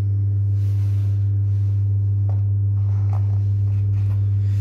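Steady low hum of an egg incubator's fan motor running, with a few faint taps and rustles of eggs being handled in a pulp egg tray.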